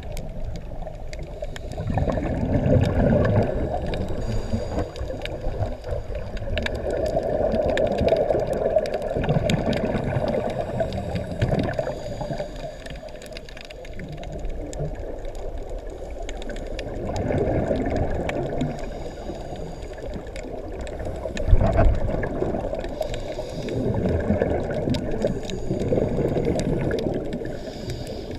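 Underwater scuba regulator breathing: four long swells of rumbling, gurgling exhaled bubbles several seconds apart, over a faint steady crackle of clicks. A single sharp thump sounds a little past the middle.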